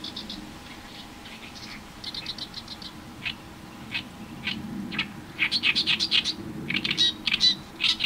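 Oriental reed warbler singing in its harsh, grating voice. After faint raspy phrases at first, it gives a few separate harsh notes spaced about half a second apart. From about halfway through it runs into loud, rapid chattering song phrases.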